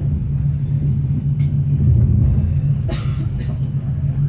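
Steady low rumble of an SBB InterRegio passenger train running, heard from inside the carriage, with one brief clack about three seconds in.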